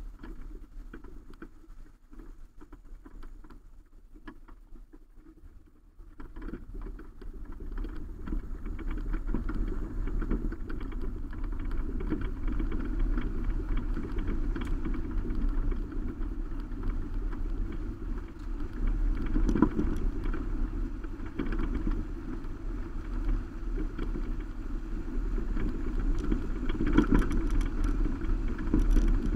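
Subaru Baja driving on a gravel road, heard from a roof-rack camera: steady road and tyre noise, with scattered clicks of gravel. It gets much louder about six seconds in as the truck picks up speed.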